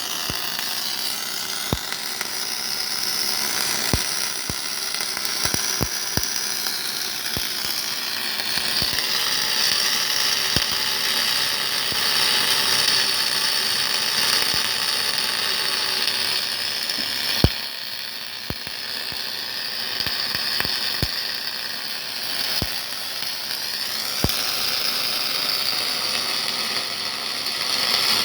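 Welding robot at work: a steady high hiss with irregular sharp crackles scattered through it, one louder crack about seventeen seconds in.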